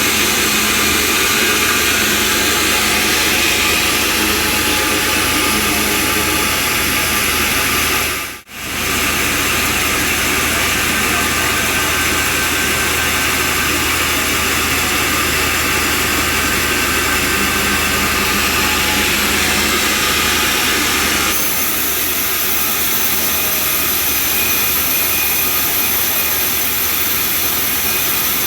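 Sawmill bandsaw and its engine running steadily, a loud dense noise. It cuts out for a moment about eight seconds in and turns brighter and slightly quieter about 21 seconds in.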